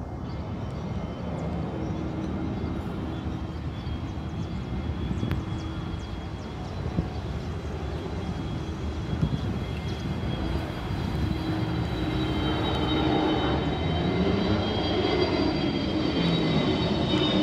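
Jet engines of an Airbus A320-family airliner on approach, passing low with its landing gear down: a steady engine noise that grows louder, with a high whine coming in during the second half.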